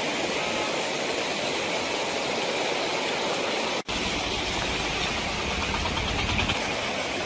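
Steady rushing of fast-flowing floodwater. After a brief break about four seconds in, a low rumble joins the rushing noise.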